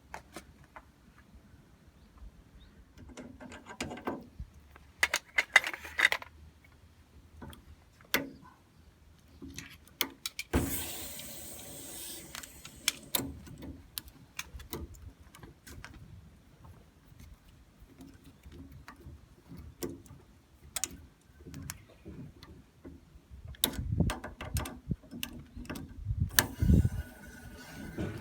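Irregular clicks, clinks and knocks of metal parts and tools being handled during installation work. There is a short rushing noise about ten seconds in, and heavier low thumps near the end.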